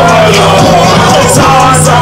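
Loud rap track with long, held bass notes and voices over it.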